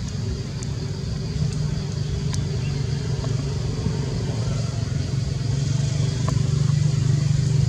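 Steady low rumble of a motor vehicle engine running nearby, growing a little louder toward the end, with a faint steady high hiss above it.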